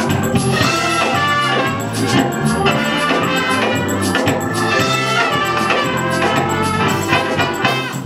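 Live trumpets playing a moving melodic line together over organ accompaniment with steady held low notes.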